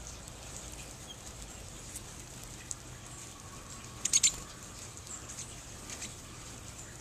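Small finches (American goldfinches and pine siskins) at a thistle feeder, giving faint, high, short calls. About four seconds in comes a quick cluster of sharp high clicks, the loudest sound.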